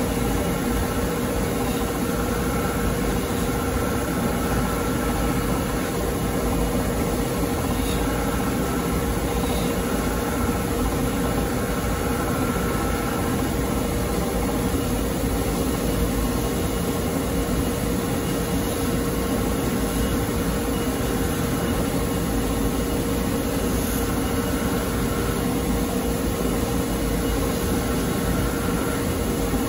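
Electric bench polishing machine running with a steady hum while a steel deba kitchen knife is held against its spinning wheel and polished.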